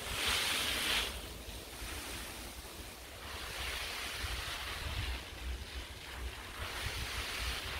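Garden hose spray nozzle hissing as it sprays water over plants, in three spells, the first and loudest at the start. Low wind rumble on the microphone underneath.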